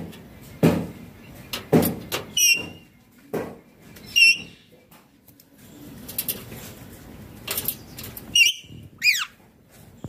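Indian ringneck parakeet giving short high calls three times, then a call that slides downward near the end. Between the calls there are knocks and rustling.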